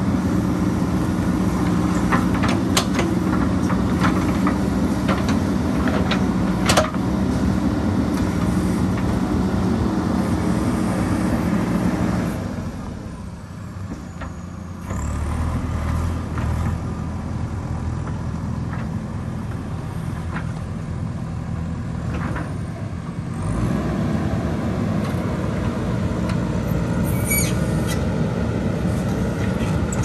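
JCB backhoe loader's diesel engine working at high revs, with scattered sharp knocks in the first several seconds. About twelve seconds in it drops briefly, then runs on at lower revs with a deeper note, picking up again later on.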